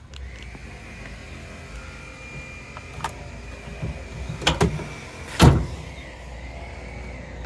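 Tools and equipment knocking against each other and the pickup's bed as gear is pulled out: a click about three seconds in, two quick knocks a second and a half later, then one louder knock.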